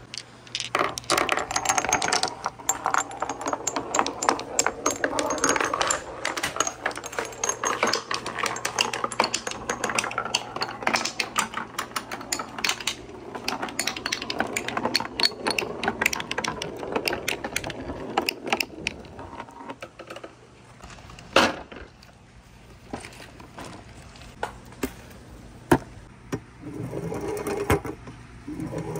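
Marbles rolling and clattering down a wooden marble run, a dense stream of clicks and rattles. After about twenty seconds it thins to scattered single clicks, then picks up again briefly near the end.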